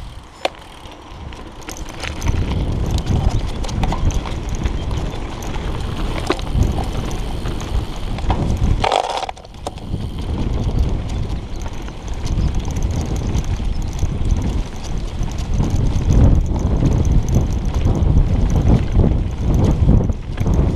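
Mountain bike ridden over bumpy grass and dirt: a steady low rumble of tyres and wind on a chest-mounted action camera, with knocks and rattles from the bike over the bumps.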